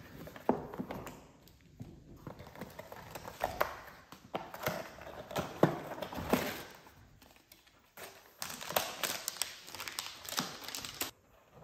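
A small cardboard box being opened and unpacked by hand on a plastic tool case: cardboard and paper rustling with irregular taps and knocks.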